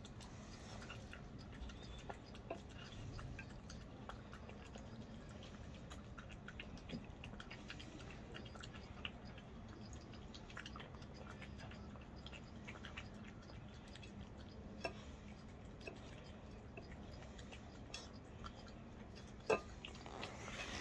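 A puppy eating chunks of food from a plate: faint chewing with many small scattered clicks of teeth and food against the plate, and one sharper click near the end.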